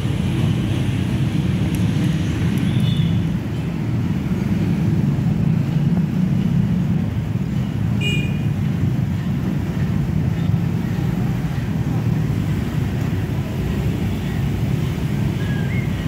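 Road traffic at a level crossing, mostly motorbikes passing, heard as a steady low rumble, with a couple of short high chirps about halfway through.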